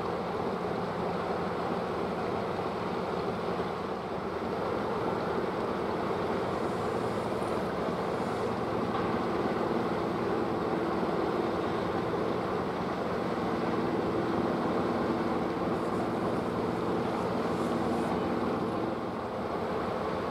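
Steady low drone of machinery with a rushing, wind-like noise over it; the hum grows a little stronger partway through. A few faint light ticks sound around the middle and near the end.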